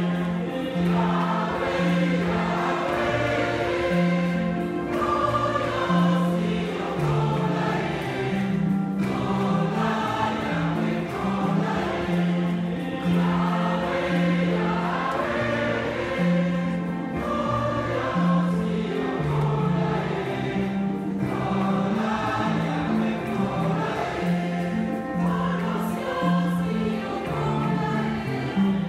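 Church choir singing a hymn, with a low bass line moving in short, even notes beneath the voices.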